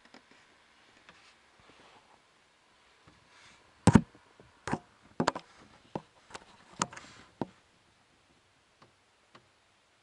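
A quick run of about eight sharp clicks and knocks from under a car's dashboard, a few seconds in, then two faint ticks near the end.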